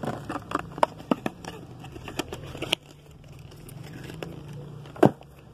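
Plastic packaging crinkling and small items clicking as hands rummage through a cardboard box of cosmetics, with one sharp knock about five seconds in.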